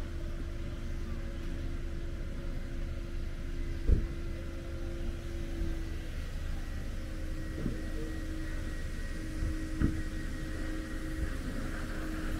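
Steady low rumble and machine hum of car wash equipment, with a few sharp knocks; the loudest knock comes about four seconds in, and two lighter ones come later.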